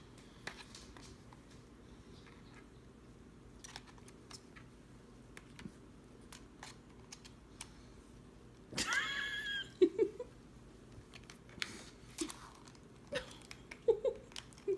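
A ferret pawing and mouthing a plastic TV remote: scattered light clicks and taps. About nine seconds in comes one brief high squeaky sound, the loudest moment, followed by a few short low sounds.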